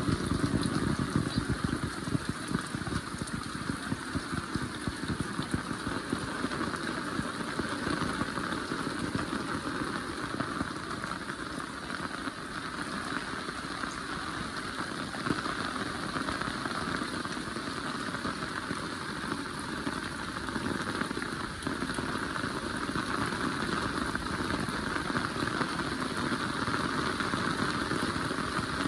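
Heavy rain falling steadily, with a dense spread of close drop hits.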